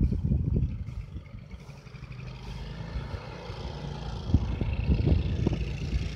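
The homemade karakat's Lifan 24 hp engine running as the machine is driven, a steady engine tone, with louder low rumbles in the first second and again about four to five seconds in.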